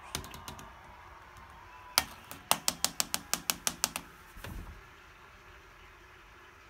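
Sharp hard taps: a few light ones at first, one loud tap about two seconds in, then a quick run of about ten taps, about seven a second. A short rustle follows.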